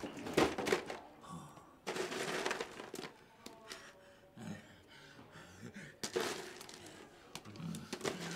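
Ice cubes clattering and clinking in a plastic tub as hands scoop and rummage through them, in several bursts.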